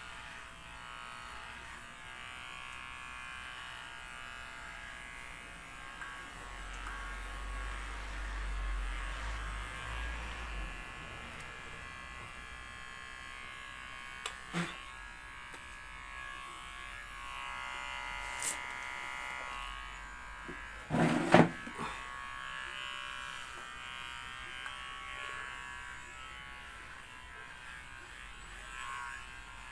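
Handheld electric hair clipper buzzing steadily as it is run over the scalp to shave the head bald. A few sharp clicks come partway through, and a short cluster of louder knocks near two-thirds of the way through.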